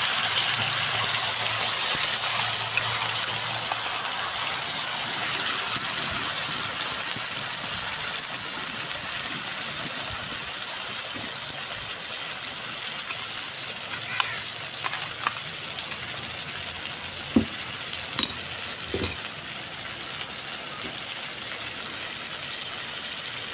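Ground masala paste of mustard, garlic, tomato and chilli frying in hot oil in a kadhai: a steady sizzle that slowly dies down. A few light knocks of the wooden stirring spatula come past the middle.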